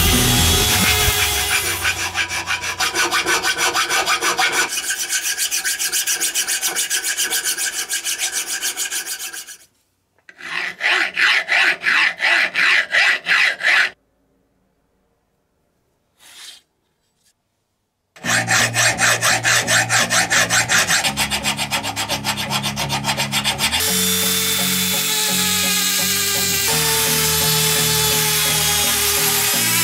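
Abrasive sanding drum on a rotary tool rasping against cast iron in rhythmic strokes, several a second, in runs broken by a few seconds of silence. Background music with steady tones takes over near the end.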